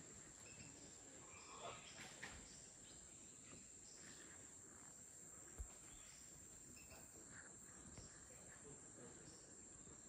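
Near silence: faint rainforest ambience with a steady high-pitched insect drone, a few faint rustles and one soft bump a little past halfway.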